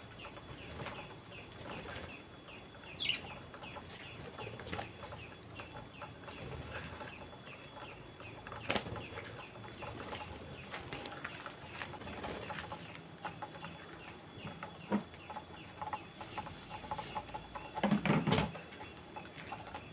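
Aviary birds calling and chattering, with many short scattered chirps and a falling call about three seconds in. A louder burst of sound comes near the end.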